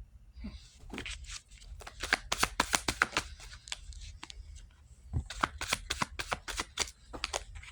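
A deck of cards shuffled by hand: quick runs of papery flicks and riffles, with a short lull about four seconds in before the shuffling picks up again.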